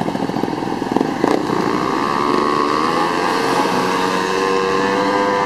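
Car and scooter engines running as the vehicles pass close by. A fast throbbing exhaust note at first, two sharp pops about a second in, then a steady engine drone.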